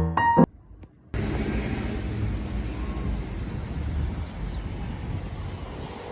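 Piano music stops, and after a moment's near-silence a steady vehicle rumble cuts in, an even noise strongest in the low end, with no speech over it.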